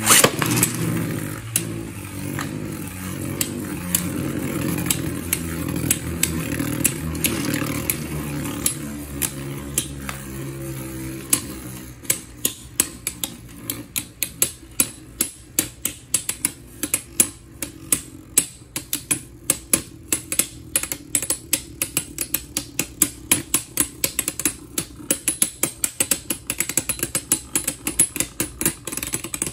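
Beyblade Burst spinning tops in a plastic stadium: a sharp clack as the second top is launched in, then a steady whirring hum that sinks in pitch as the tops slow. From about twelve seconds in, the two tops tick against each other in a run of rapid clicks that grows denser toward the end.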